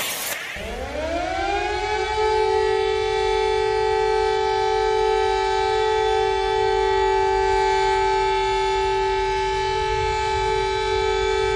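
Civil defence siren starting abruptly, winding up in about two seconds from a low pitch to a high tone, then holding that one steady tone, over a low rumble.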